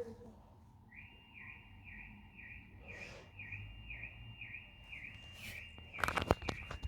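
Car alarm siren starting about a second in: a high, even chirping about twice a second over a steady high tone. Near the end a brief burst of loud clicks and knocks.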